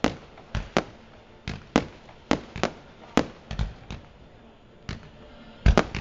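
Aerial firework shells bursting in quick, uneven succession, a dozen or more sharp bangs, with a short lull about four seconds in and a loud tight cluster of bangs near the end.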